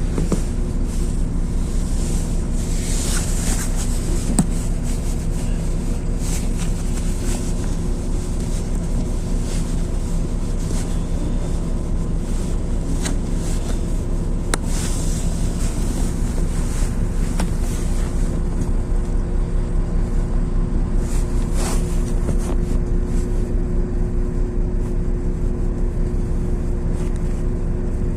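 Interior of a LiAZ-6213 articulated diesel city bus under way: steady engine drone and road rumble, with scattered rattles and knocks from the body. A steady whining tone grows stronger in the second half.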